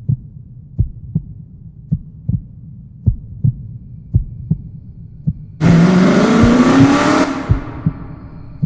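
A low double-thump heartbeat repeating about once a second. About two thirds of the way in, a racing car's engine bursts in loud and rises in pitch as it accelerates, then fades away while the heartbeat carries on.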